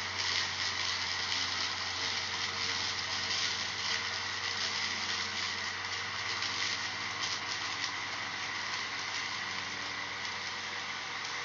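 EGO Power+ LM2102SP-A 56-volt cordless lawn mower running steadily: a constant electric motor hum under a hiss of the spinning blade.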